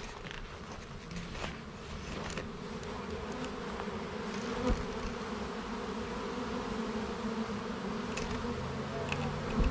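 Swarm of honey bees buzzing, a steady dense hum of many bees, with a brief knock about halfway through.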